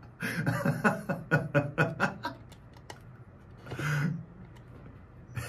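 A man laughing: a run of quick, rhythmic laughs over the first two seconds that fades away, then one more short burst of sound about four seconds in.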